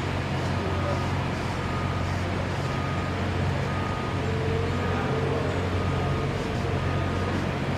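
Steady low engine drone, like idling vehicles or machinery, with a faint short high tone recurring about once a second.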